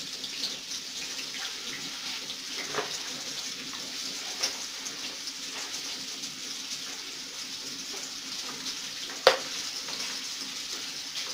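Hands fitting the screw lid with its airlock tube onto a plastic fermentation tank: a few light plastic clicks and one sharp click about nine seconds in, over a steady hiss and a low hum.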